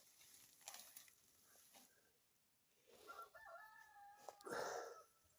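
A rooster crows once, faintly, a little past the middle, over near silence.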